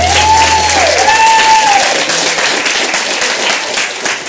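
Wedding guests applauding, with two long rising-and-falling cheering calls over the clapping in the first two seconds; the applause thins toward the end.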